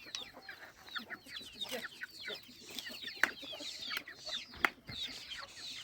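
Chickens clucking and peeping in a busy run of short, high, falling chirps, with two sharp knocks, one about three seconds in and one about four and a half seconds in.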